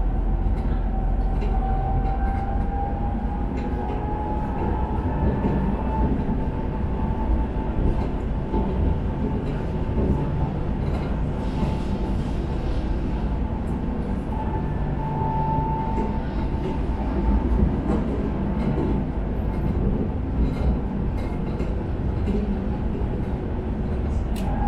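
Tram running on its rails: a steady low rumble with a thin high whine that climbs slightly in pitch over the first few seconds, and scattered clicks.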